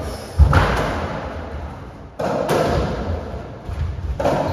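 Racketball rally on a squash court: the ball is struck and hits the walls with echoing thuds. The loudest strike comes about half a second in, and another sharp impact follows about two seconds in.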